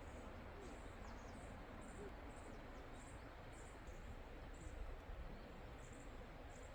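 Faint, high, thin bird calls repeating about twice a second over a steady background hiss.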